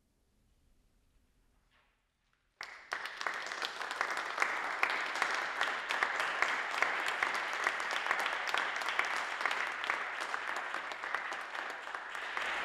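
Near silence for about two and a half seconds, then a small audience applauding, the separate hand claps easy to pick out.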